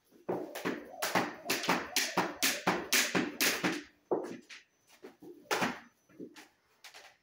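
Skipping with a jump rope on a wooden floor: the rope slaps and hard-soled shoes land in a steady beat of about two to three hits a second. After about four seconds the rhythm breaks into sparser, uneven hits.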